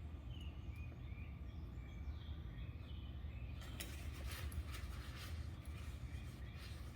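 Steady low background rumble with a few faint bird chirps; from about halfway, crisp rustling and scraping handling noises.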